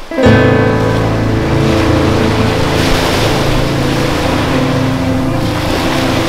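Small sea waves washing up onto a sandy shore, the rush swelling about three seconds in and again near the end, over a steady low drone.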